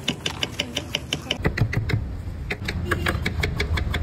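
Rapid knife chopping on a chopping board, about seven strokes a second, as a cabbage is shredded by hand, with a short pause about two seconds in.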